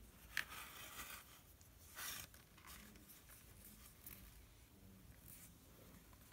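Near silence with faint handling noises: a soft click about half a second in and a brief rustle about two seconds in.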